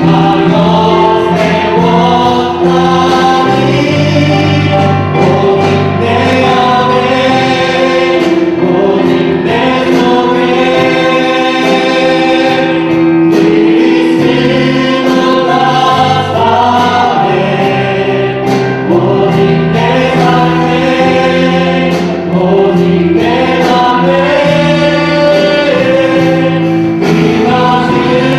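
Church choir singing sacred music in several parts, with long held notes.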